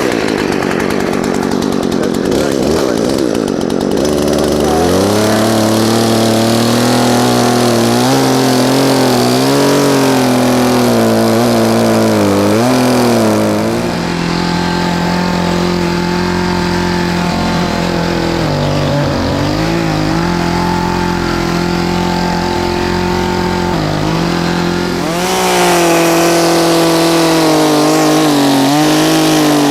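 Two-stroke chainsaw running at high revs while cutting the felling notch into a tree trunk, its engine pitch repeatedly sagging and recovering as the chain bites into the wood.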